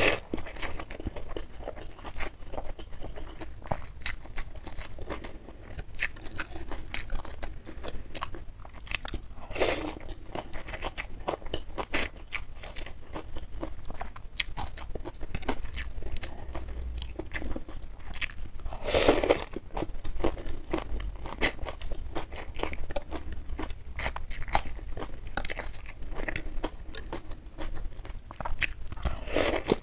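Close-miked eating of beef meatball soup with rice vermicelli: constant wet chewing and mouth clicks, with noodles slurped in three longer bursts about ten seconds apart.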